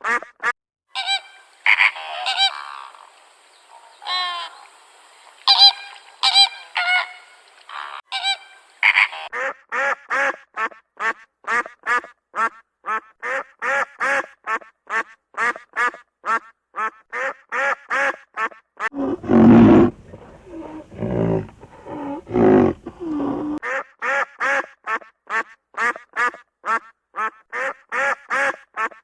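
Farm birds calling in a long run of short, pitched calls, about three a second, with several different calls overlapping in the first nine seconds. A deeper, louder call breaks in about two-thirds of the way through.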